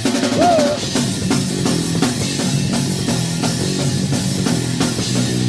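Rock band playing an instrumental passage: drum kit keeping a steady beat under guitar.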